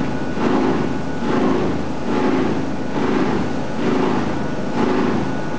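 Plastic washing-line machinery for HDPE strap running: a steady industrial drone with a regular pulsing beat a little under twice a second and a thin steady whine.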